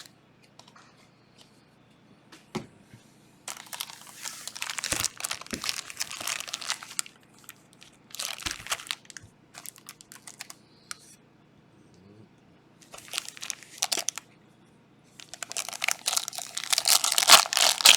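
Plastic wrapping from trading card packs being torn open and crinkled in several bursts, the loudest near the end.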